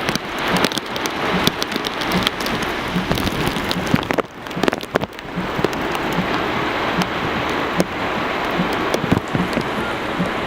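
Heavy tropical-storm rain falling hard, with individual drops striking as sharp ticks through a steady rush; it eases briefly about four seconds in.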